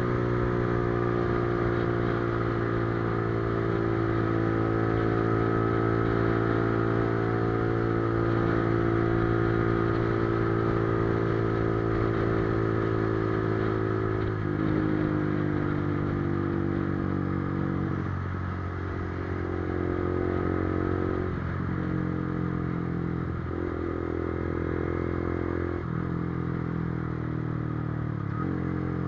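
Honda CB650F inline-four engine and exhaust running on the move. The note sinks slowly for about fourteen seconds, then dips and climbs again in short steps five or six times.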